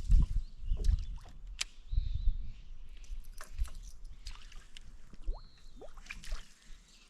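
Water sloshing and splashing around a Hobie Outback pedal kayak, with uneven low thuds and scattered clicks and knocks. A few short, high chirps come through.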